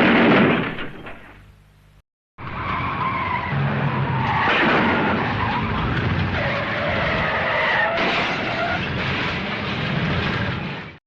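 The tail of a loud blast dying away over the first two seconds, then, after a short cut, a car with its tyres squealing and skidding, a wavering high screech over engine and road noise, for about eight seconds until it cuts off.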